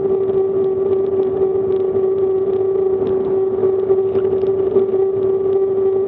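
Steady ride noise picked up by a bicycle-mounted camera: wind and tyre rush with a constant one-pitched hum.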